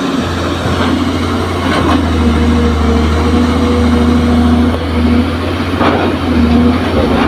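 Hydraulic excavator's diesel engine running steadily under digging load, a low hum whose pitch wavers slightly, with a couple of short knocks from the bucket working the dirt and rock about two and six seconds in.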